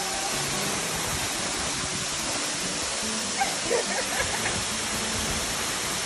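Tagbo Falls, a waterfall about 60 metres high, pouring into its pool: a steady, even rushing noise. A few brief faint sounds rise above it about halfway through.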